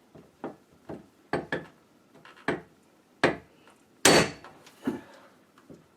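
A tool knocking against a door hinge, about nine sharp knocks at an uneven pace, the loudest about four seconds in. The hinge is being bent to close it up so the sagging door stops dragging on its frame.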